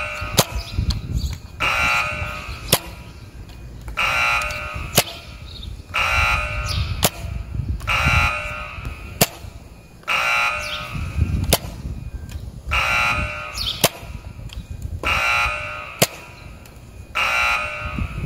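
Nerf Zombie Strike Sidestrike pistol being primed and fired over and over, about eight times, roughly one cycle every two seconds. Each time, the plastic slide is pulled back and forth with a springy rasp, and a sharp snap follows as the dart is fired. Wind rumbles on the microphone underneath.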